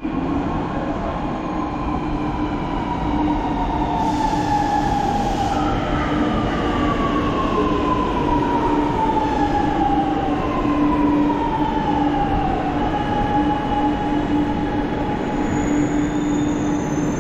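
Chennai Metro electric train running, with a steady low hum under a motor whine that slides down in pitch several times in a row.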